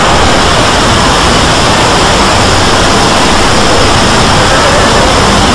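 A loud, steady wall of noise-like din, the soundtracks of hundreds of clips played over one another at once until they blur into something close to white noise. It starts abruptly and never lets up.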